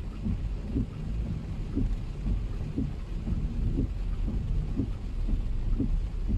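Heavy rain pelting a car, heard from inside the cabin as a steady low rumble and wash, with a short low pulse repeating about twice a second.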